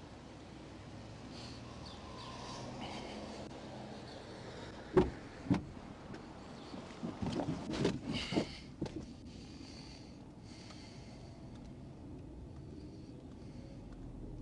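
Patrol car door and handling sounds: two sharp knocks about five seconds in, then a cluster of clunks and rustles around eight seconds, over the low steady hum of street traffic.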